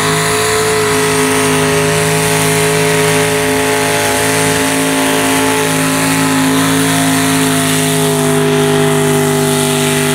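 Chevrolet pickup truck's engine revved hard and held at a steady high pitch as its tyres spin and throw mud through a mud-bog pit.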